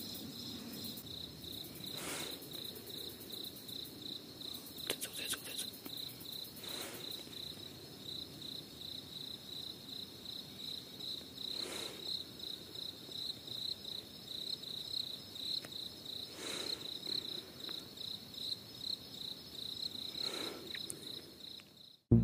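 A cricket chirping steadily in a rapid, even rhythm of about three chirps a second, with a few faint rustles now and then; it all cuts off suddenly just before the end.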